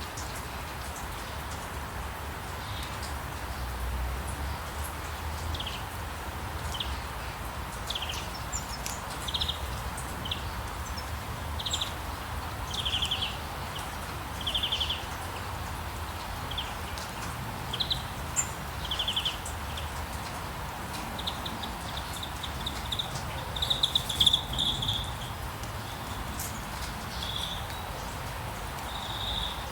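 Birds chirping: short high calls and quick trills, all at about the same pitch, repeated every second or so. They grow busier and loudest about three-quarters of the way through, over a steady background hiss and a low rumble.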